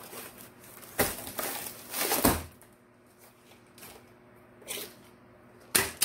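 Cardboard packaging and a plastic-wrapped rolled diamond-painting canvas handled and set down on a countertop: a few separate knocks and rustles, the loudest a deep thump about two seconds in and a sharp knock near the end.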